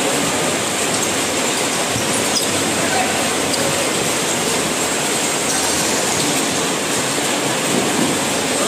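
Steady, dense crowd noise from spectators at a futsal match, with a few faint short knocks.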